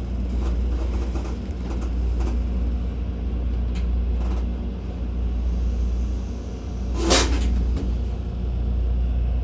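Running noise in the gangway between the carriages of a Taiwan Railway local electric train: a steady low rumble with faint scattered clicks, and one short, loud clatter about seven seconds in.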